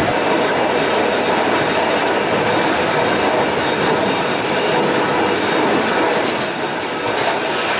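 Freight wagon running at speed: steel wheels on the rails make a steady, loud noise, with a few sharp clicks about six to seven seconds in.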